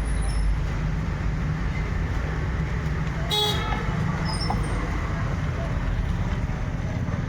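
Steady low rumble of vehicle engines and road traffic, with one short vehicle horn toot about three and a half seconds in.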